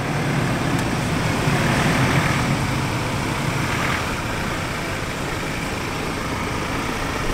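Ford Ranger Raptor's engine running steadily at low revs as the pickup crawls in four-wheel drive through deep ruts on a dirt track.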